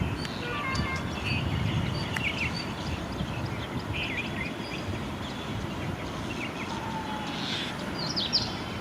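Birds chirping in short calls over a steady low rumble.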